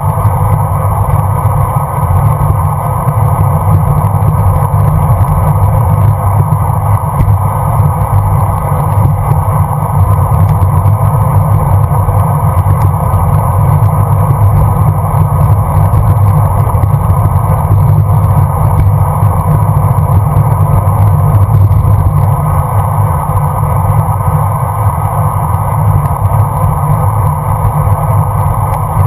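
Steady wind rush on a bike-mounted GoPro's microphone while riding at speed, mixed with tyre and road noise, with no breaks or sudden sounds.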